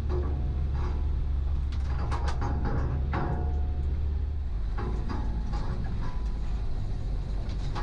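Land Rover Defender engine running low and steady at crawling speed, with short knocks and rattles as the vehicle bumps over a rutted dirt track. The engine note drops a little about five seconds in.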